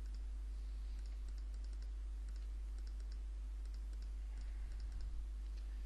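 Faint, irregular clicking of a computer mouse and keyboard over a steady low electrical hum.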